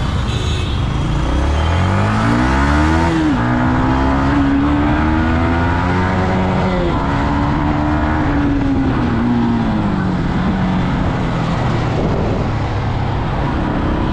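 Yamaha MT-15 single-cylinder motorcycle engine accelerating. The revs rise steadily, drop sharply at a gear change about three seconds in, then hold and later ease down, with wind noise throughout.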